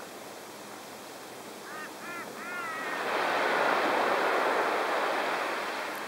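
Silver gulls giving several short, arching squawks in quick succession, then a louder rushing noise swells up and fades away over about three seconds.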